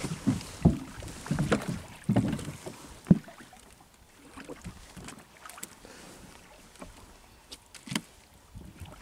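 Irregular knocks and thuds of handling on a small wooden fishing boat, busiest in the first three seconds with a sharp knock about three seconds in, then a few scattered clicks over faint wind.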